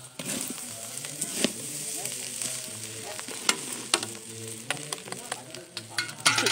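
Rice being stir-fried in a large wok: spatulas scrape and clack against the pan over a steady sizzle.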